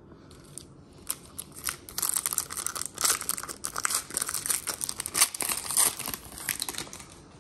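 Foil wrapper of a Panini Recon basketball card pack being torn open and crinkled by hand: a dense run of sharp crackles that starts about a second in and dies down near the end.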